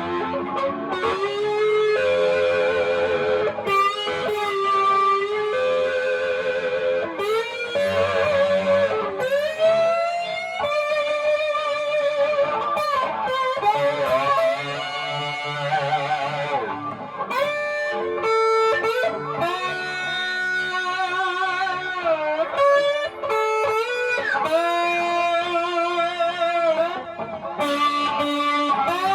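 Fender Stratocaster electric guitar played slide: lead notes that glide into pitch and waver with vibrato, over sustained lower notes.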